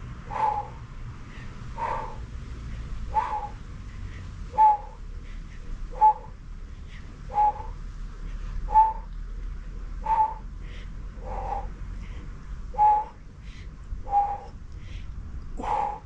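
A dog barking steadily, one short bark about every second and a half.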